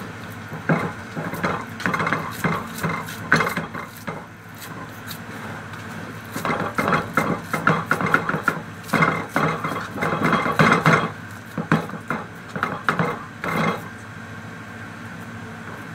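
A metal baking tray knocking and rattling as hands pat and press minced kofta meat into it, in irregular clusters of sharp knocks with short lulls between. A steady low hum runs underneath.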